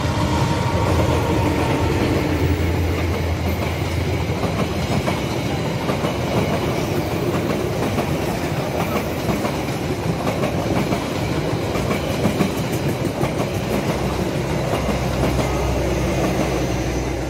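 A passenger train passing close by: a GE CC206 diesel-electric locomotive goes past with its engine running, then its carriages roll past with a steady clickety-clack of wheels over the rail joints.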